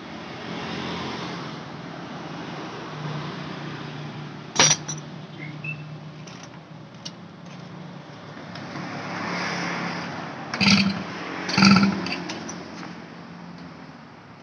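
Metal hand tools clanking against a motorcycle engine: one sharp clank about a third of the way in and two louder ones close together later on, over a steady engine hum that swells twice.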